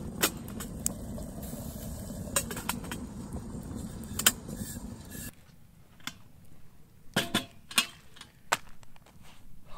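Wood campfire burning under a steel grill grate, a steady low rush with scattered crackling pops, as a stainless steel kettle is handled and lifted off the grate. About five seconds in the fire sound stops, and a few separate clicks and knocks follow as the kettle and a food pouch are handled at a wooden picnic table.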